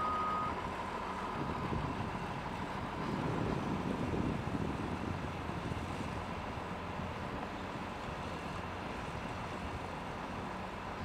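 Caterpillar 325D excavator's C7 diesel engine running under hydraulic work as the arm and bucket move, heard from a distance as a steady rumble that grows louder for a second or two about three seconds in. A faint steady whine sits above it.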